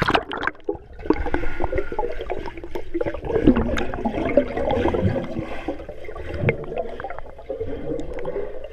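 Swimming-pool water heard from a submerged camera: muffled gurgling and bubbling, churned by a dog paddling just overhead. A loud splash comes right at the start.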